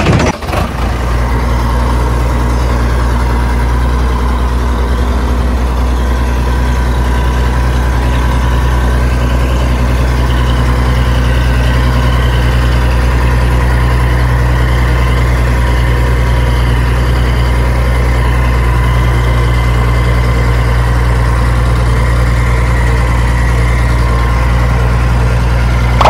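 Heavy engine idling steadily, a low, even rumble that does not change.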